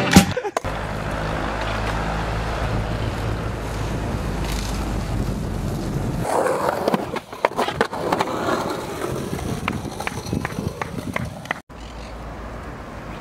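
Skateboard wheels rolling steadily over paving for about six seconds, then a run of sharp clicks and knocks of a skateboard on concrete.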